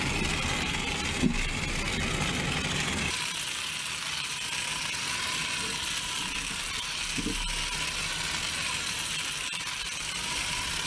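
Small 1.5-volt toy motor of a battery-operated toy helicopter running steadily, a buzzing whir as it spins the main rotor.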